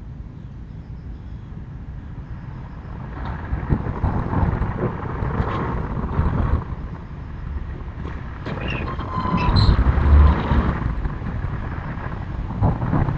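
A car passing on the street, its rumble building to a peak about ten seconds in, with a few brief high squeaks near the loudest point.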